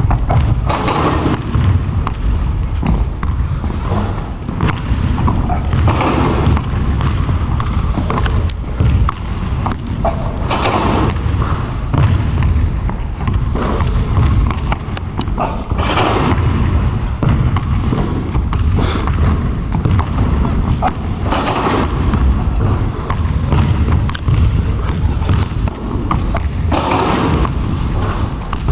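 Basketballs bouncing and thudding on a hardwood gym floor over a steady low rumble, with louder bursts every five seconds or so.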